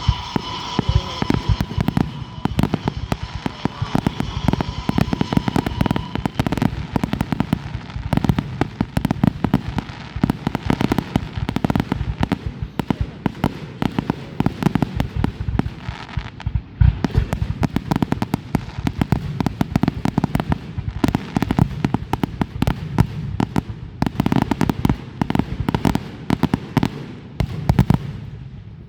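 Fireworks going off in a dense barrage, many sharp bangs and crackles every second with no break.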